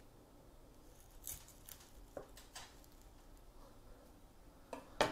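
Kitchen knife slicing a nori-wrapped sushi roll on a plastic cutting board: a handful of light clicks and taps as the blade goes through and meets the board, the sharpest one near the end.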